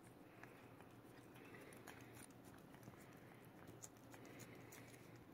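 Faint, irregular small clicks and smacks of a cat licking a lickable paste treat from a squeeze tube.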